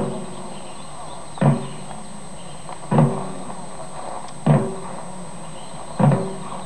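A single drum beaten slowly and evenly, one stroke about every second and a half, five strokes in all, each a low thud with a short ring.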